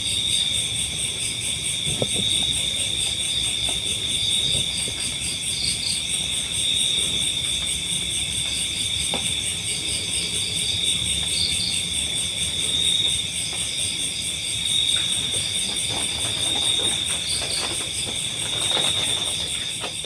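Dense chorus of crickets and other night insects: a steady high trill, with short pulsed chirps over it every few seconds.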